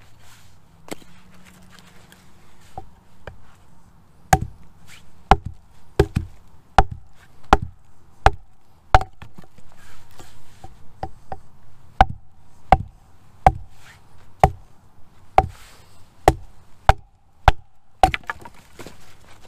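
Hatchet chopping into a dead log: a steady run of sharp chops, one to two a second, with fewer in the first few seconds.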